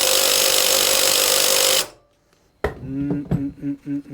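Impact wrench hammering steadily on a flywheel puller bolt, trying to shock the flywheel loose from an antique Briggs & Stratton engine. It stops abruptly just before two seconds in. A couple of sharp knocks and short pitched sounds follow near the end.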